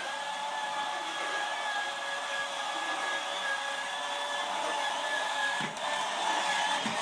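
Small electric drive motor and gearbox of a ride-on toy ATV whining steadily as it drives along, dipping briefly near the end.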